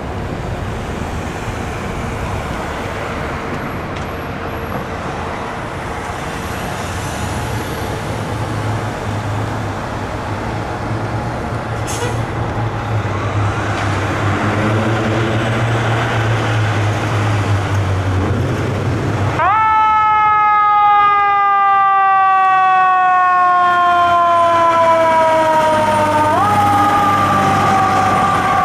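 City street noise and the low rumble of the fire engine's diesel engine as it pulls out. About two-thirds of the way through, the 2006 Spartan Gladiator's Federal Signal EQ siren comes on: it winds up quickly, then slowly falls in pitch, and near the end it is pushed back up and starts falling again.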